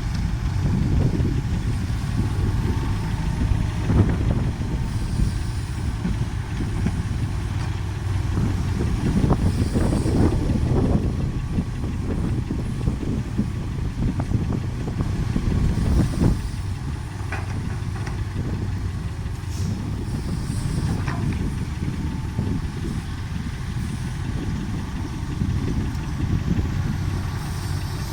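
Tracked excavator's diesel engine running steadily while working, with a few short knocks in the first half.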